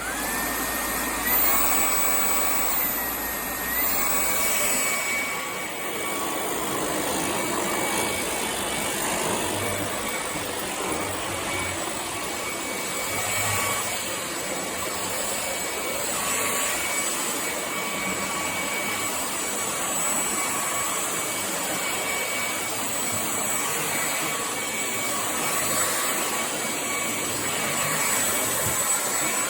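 Hoover ONEPWR WindTunnel Emerge cordless stick vacuum running steadily, a rushing airflow with a high motor whine. The whine steps up in pitch about a second in, dips briefly, then holds steady.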